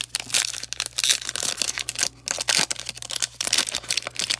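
A trading card foil pack being torn open and handled: dense, irregular crinkling and crackling of the foil wrapper with small clicks.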